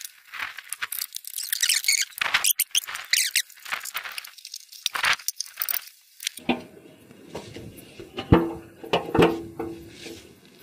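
A spanner loosening the bolts that hold a motorcycle's seat and body panels, giving repeated squeaking, scraping strokes. Near the end come a few metal clanks with a short ring as the fuel tank and panels are pulled free, two of them louder.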